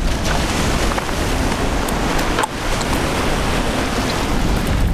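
Wind buffeting the microphone over surf: a steady rushing noise that dips briefly about halfway through.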